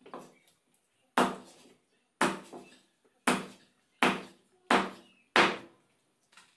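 A machete chopping through a pomfret into a wooden chopping block: a light stroke at the start, then six loud, sharp chops about a second apart, coming a little faster toward the end.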